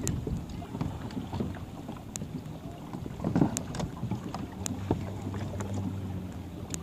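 Small waves lapping and slapping against plastic sit-on-top kayak hulls, with scattered small clicks and knocks and wind on the microphone; a louder bump about three and a half seconds in.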